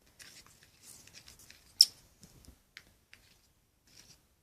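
Small scrapes and sticky clicks from stirring a runny toothpaste-and-shampoo slime mixture in a small container, with one sharp click a little under two seconds in.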